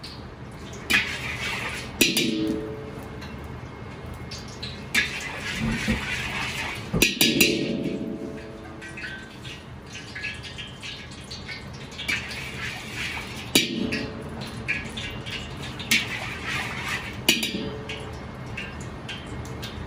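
Steady roar of a gas wok burner heating a wok of oil, with a few sharp metallic clanks and clatters of pans and utensils, some ringing briefly, every few seconds.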